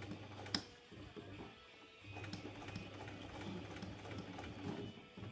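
Electric sewing machine running in two stretches, stopping briefly just after the start and starting again about two seconds in, with clicks from handling between them. The machine is not sewing properly.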